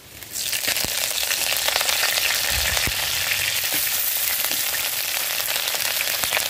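Fresh curry leaves hitting hot coconut oil in an earthenware pot: a loud sizzle starts suddenly just after the start and holds steady, with a few pops.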